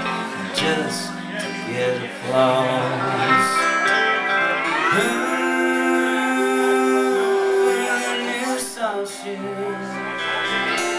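Live band music: strummed acoustic guitar with pedal steel guitar sliding between sustained notes.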